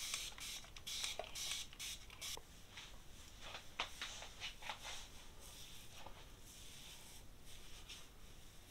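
Spray bottle misting hair treatment onto hair: a quick series of about eight short hissing sprays over the first two and a half seconds. After that come faint crackles and rustles of fingers working the product through tightly coiled hair.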